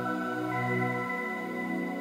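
Calm, slow background music of long held chords. A high note comes in about half a second in, and the lowest bass note drops away about a second in.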